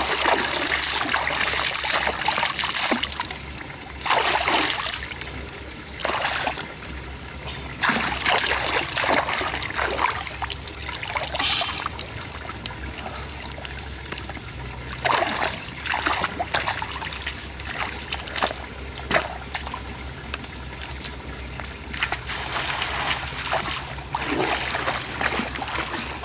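Shallow stream water splashing in repeated short bursts as hands scoop through it and legs wade, with the water trickling in between.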